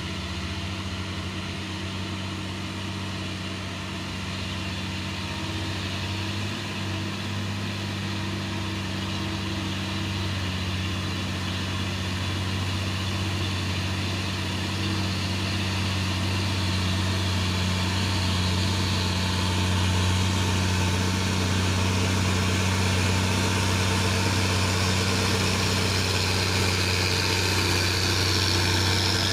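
Diesel engine of a heavy three-axle cargo truck running steadily under load as it climbs toward the listener. It grows gradually louder, with tyre and road hiss rising near the end as it draws close.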